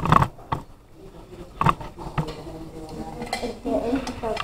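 Cutlery clinking and scraping on dinner plates during a meal, with a few sharp clinks, the clearest about a second and a half and two seconds in.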